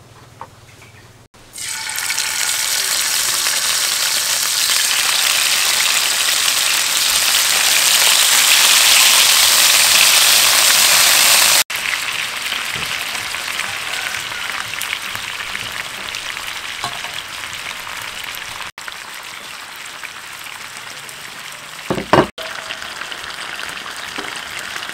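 Chicken legs frying in hot oil in a frying pan, a loud steady sizzle that starts suddenly about a second in and is loudest around the middle, while the pieces are turned with metal tongs. A single knock comes near the end.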